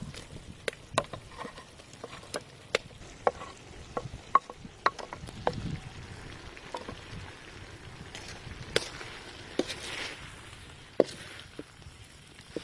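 Fried catfish pieces being tipped into a metal wok and stirred in with onion, chili and ginger in hot oil: irregular sharp knocks and scrapes of a utensil against the wok over a light sizzle, with a louder stretch of sizzling about ten seconds in.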